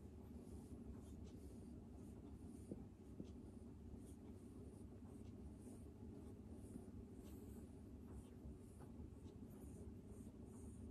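Faint, soft scratchy rustling of fingers rubbing and massaging a cat's fur on its neck and chest, recurring in short strokes over a steady low rumble.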